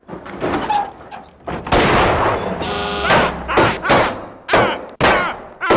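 Cartoon sound effects: a loud crash lasting about a second, with a short horn-like tone at its end. Then a man gives short cries that repeat about twice a second.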